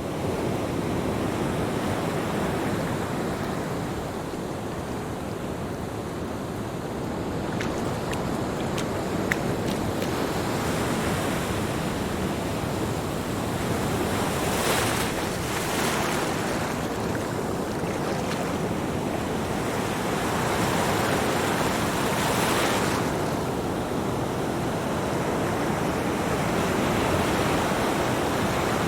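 Ocean surf: a steady rush of waves, with several louder washes of breaking water past the middle.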